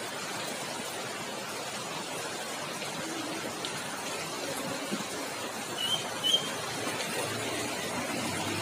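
Steady rain falling on a wet road, an even hiss throughout. About six seconds in come two short, high chirps.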